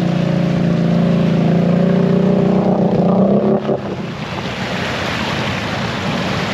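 ATV engine running at steady revs that climb a little, then its note drops away suddenly about three and a half seconds in, leaving the rushing, churning noise of water as the machine wades through a water-filled mud hole.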